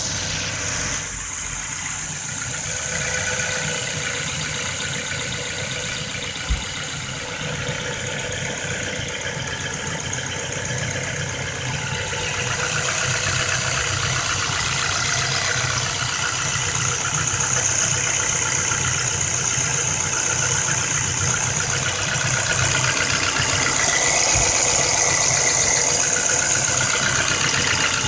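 A 2008 Ford Focus 1.6 four-cylinder engine idling with a steady rhythmic knock, most likely from worn piston pins, a fault that calls for an engine rebuild. One sharper tap stands out about six and a half seconds in.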